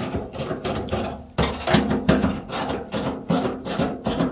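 A 10 mm socket wrench backing out the screws that hold a tailgate handle. It makes a fast, uneven run of sharp clicks, several a second, with brief gaps between them.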